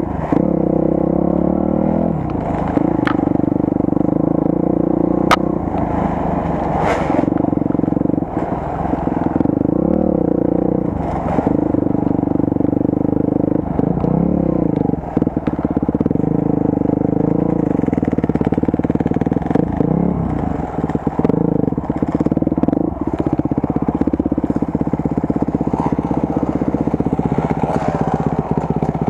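Off-road motorcycle engine running under changing throttle, its revs dipping and picking up again every few seconds, with scattered knocks and clatter.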